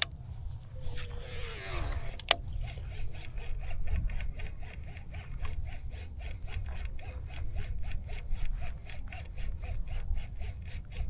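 Baitcasting reel during a cast and retrieve: the spool whirs down in pitch, a sharp click about two seconds in as the reel is engaged, then steady cranking with rhythmic ticking, about four a second, under a low wind rumble.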